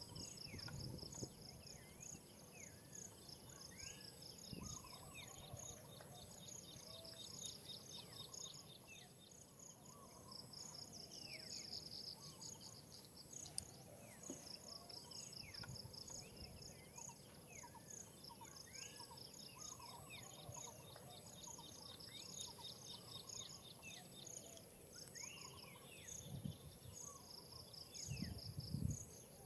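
Faint outdoor insect chirping: quick high pulsed trills that repeat every second or so, with scattered short falling chirps mixed in.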